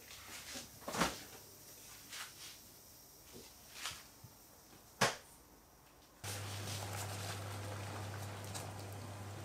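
A few light knocks and clatters, the sharpest about a second in and about five seconds in. Then, from about six seconds in, a steady low electric hum from an induction hob heating a steel pot starts suddenly, with an even hiss over it.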